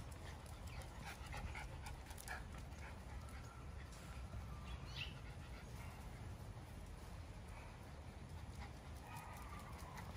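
Faint sounds of Miniature Schnauzer puppies: a few soft, thin whimpers among scattered light clicks, over a steady low background rumble.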